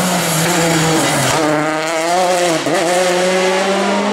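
Peugeot 208 rally car's engine passing at speed. Its pitch falls about a second in, then climbs as the car accelerates away, with a brief dip near the middle.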